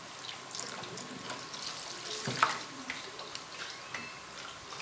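Ethanol poured in a thin stream from a plastic measuring jug into a tub of liquid soap mixture, trickling and splashing while a wooden spoon stirs it slowly. A single sharp knock about two and a half seconds in.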